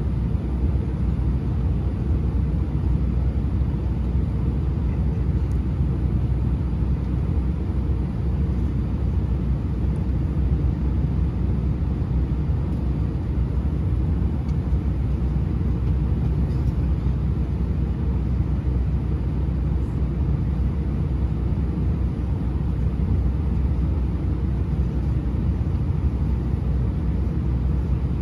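Inside the cabin of an Airbus A320-232, a steady low rumble from its IAE V2500 engines at idle and the airframe, as the aircraft waits on the ground for takeoff.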